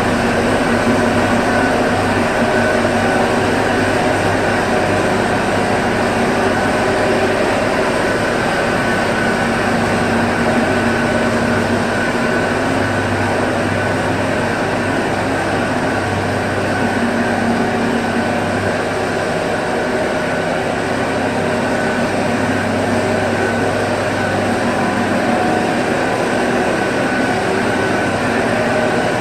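Sawdust grinding machine running steadily: a loud, continuous mechanical drone with a steady hum and a high tone through it.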